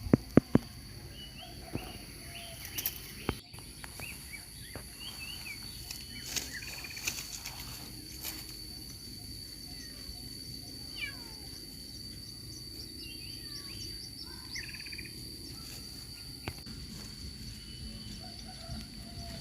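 Small birds chirping in short, quick calls that rise and fall, over a steady high-pitched drone of crickets or other insects, with scattered sharp clicks and rustles.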